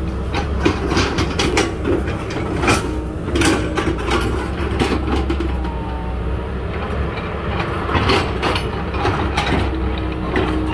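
Komatsu tracked excavator's diesel engine running steadily, with irregular metallic clanks and knocks from the working machine.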